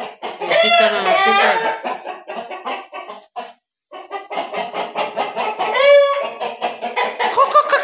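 Chickens calling: a rooster crows twice, about half a second in and again near six seconds, among many short clucking calls.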